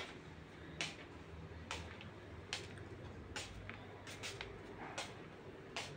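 Faint footsteps on a tile floor at a steady walking pace, a soft step a little under every second.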